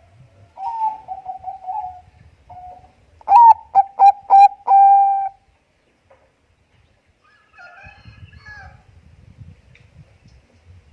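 Bangkok perkutut (zebra dove) cooing. A soft trilled run of notes comes first, then a louder phrase of several short, clipped coos ending on one longer held note. A fainter, higher call follows later.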